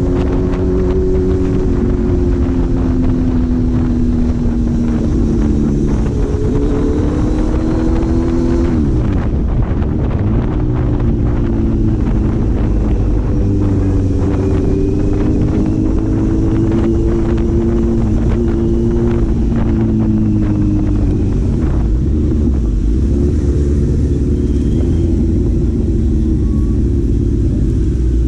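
Four-cylinder engine of a vehicle on the move, running steadily with its pitch sagging and rising again as it changes speed, over a low rumble.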